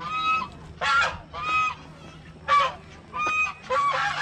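White domestic geese honking, about six loud calls in irregular succession.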